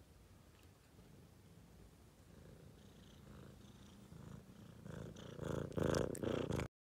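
Young tabby cat purring, faint at first and growing loud near the end as the cat comes right up to the phone's microphone. The purring cuts off suddenly just before the end.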